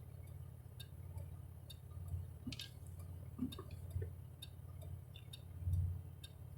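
Light tapping at about two a second from a piece of ice stuck in a rear tire, ticking with each turn of the wheel, over the low drone of the car heard from inside the cabin.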